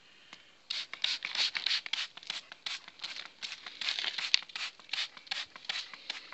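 Trigger spray bottle squirting soapy water onto a tubeless tyre's bead in rapid, repeated hissing squirts, starting just under a second in. The squirts are a leak check on the freshly sealed bead.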